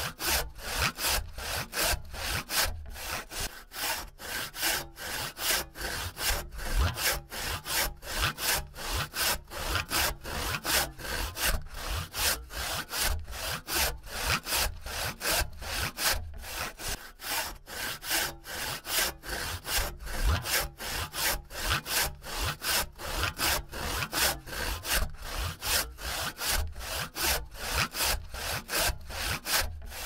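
Hand saw cutting through wood in steady back-and-forth strokes, about two a second, each stroke a rasping scrape of the teeth in the cut.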